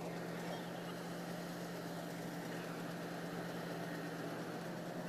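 Vishal 435 combine harvester running steadily while harvesting wheat: an even engine hum with a dense mechanical rush over it, unchanging throughout.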